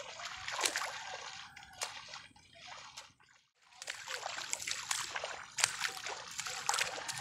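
Splashing footsteps of a person wading through shallow water in a flooded rice paddy, with many short splashes. The splashing breaks off for about a second partway through, then resumes.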